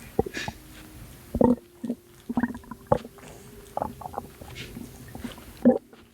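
Belly gurgling: irregular short wet gurgles and pops from a person's abdomen, about a dozen, the loudest about a second and a half in and another near the end.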